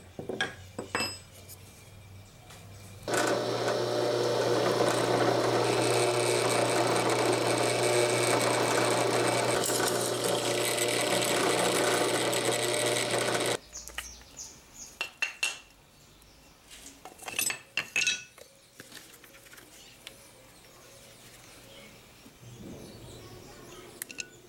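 Bench drill press motor running with a steady hum for about ten seconds, drilling through a wooden handle scale clamped onto a steel knife tang, then stopping abruptly. Scattered light clicks and knocks before and after.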